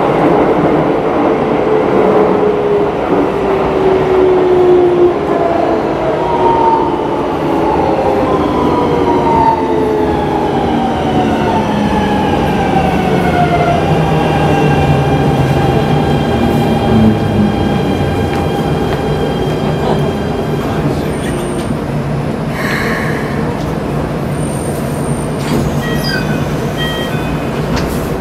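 Keikyu 1000 series (set 1033) traction inverter and motors whining in several tones that glide steadily downward as the train slows under braking, settling into steady tones at low speed. A short hiss comes near the end.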